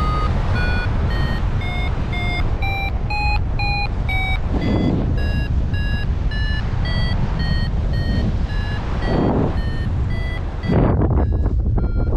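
Paragliding variometer beeping about twice a second. Its pitch climbs over the first few seconds, then drops and wavers, a sign that the glider is climbing in lift. Wind noise on the microphone sits under it, with louder gusts near the middle and the end.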